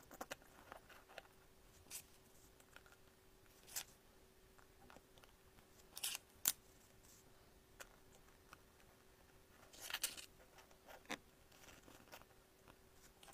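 Strips of metal stapler staples being handled and fitted together: scattered light clicks and taps, with a few short scrapes of staple strips sliding against each other, the two loudest a little under halfway through and about three quarters of the way in. A faint steady hum runs underneath.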